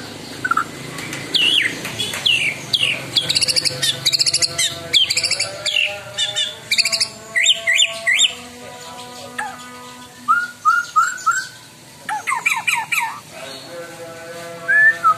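White-rumped shama singing hard: loud, varied phrases of quick whistled notes and sweeping glides, with rough, harsh 'shooting' notes, in bursts every second or two.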